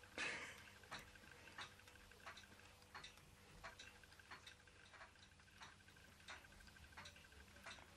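Faint, regular ticking, about one and a half ticks a second, from a Ross Yoke low-temperature Stirling engine's linkage and flywheel as the engine runs very slowly, almost stalling at each stroke.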